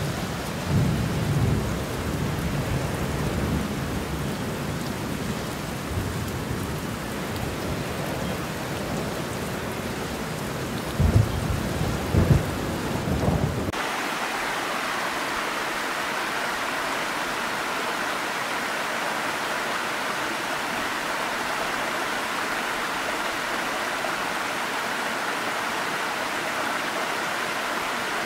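Steady rain falling, with rolls of thunder: a low rumble about a second in and louder claps a little before halfway. About halfway through the sound cuts abruptly to the even, steady rush of a tall waterfall pouring onto rocks.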